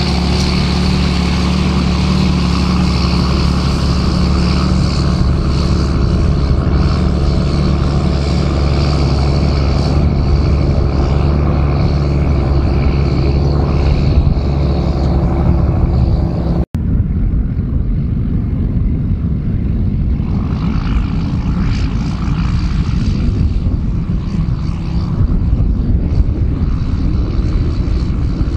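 John Deere 7810 tractor's six-cylinder diesel engine running steadily while pulling a spring-tine cultivator. After a sudden cut about 17 seconds in, the engine note is less distinct under more rushing noise.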